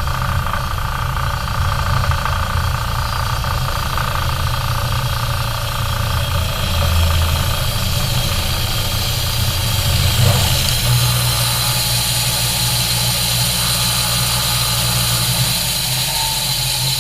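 An engine running steadily at an even speed, with no clear changes in load.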